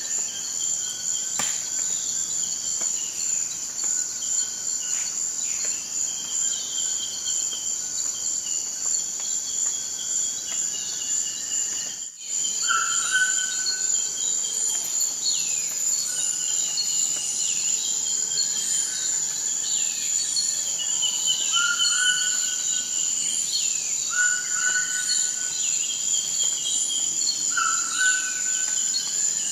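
Forest ambience: a steady, high-pitched chorus of insects such as crickets, with birds calling over it in short, repeated phrases. A brief dropout about twelve seconds in breaks the sound for a moment.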